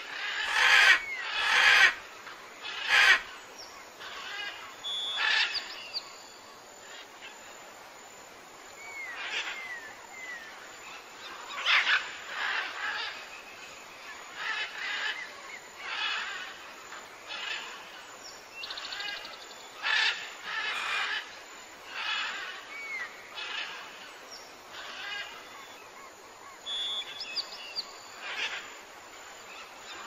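Birds calling in the surrounding trees: short calls repeated every second or two, with thin chirps and a few brief high trills between them.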